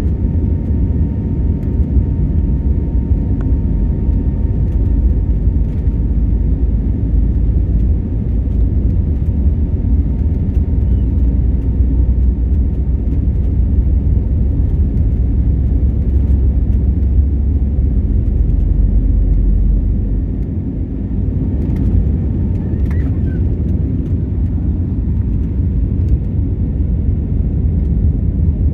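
Passenger aeroplane taking off, its engines and airframe making a steady deep rumble, with a faint thin whine in the first few seconds.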